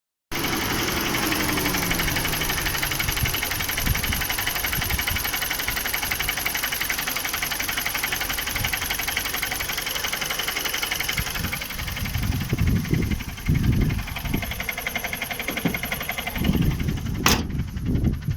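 Car engine running with a knock from a failing dual-mass flywheel. A falling tone is heard in the first few seconds, uneven low thumps come in over the last several seconds, and there is a single sharp click near the end.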